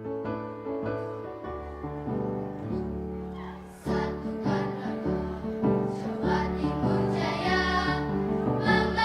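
Music: piano-accompanied song, with singing coming in about four seconds in and growing louder.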